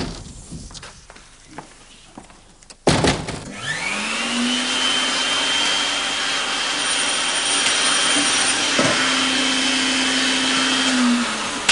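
Canister vacuum cleaner switched on with a sharp click about three seconds in. Its motor winds up to a steady whine and runs, with a single knock partway through, then starts winding down near the end.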